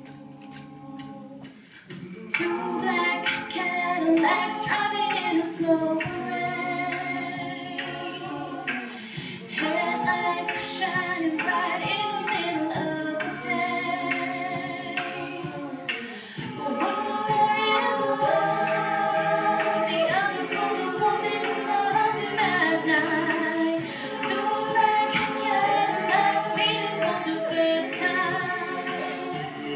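A cappella vocal group singing a song in several voice parts, with no instruments. The singing comes in about two seconds in, after a few soft clicks.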